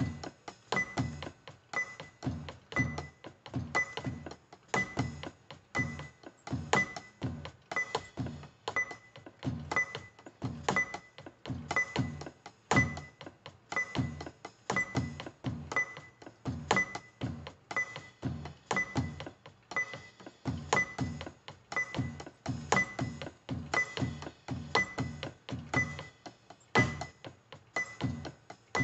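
Electronic drum kit played with sticks in a steady, repeating groove of many strokes. A steady click sounds about once a second under it.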